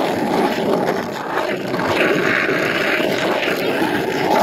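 Skateboard wheels rolling over rough asphalt: a steady, loud rumble, a little brighter for a second or so midway.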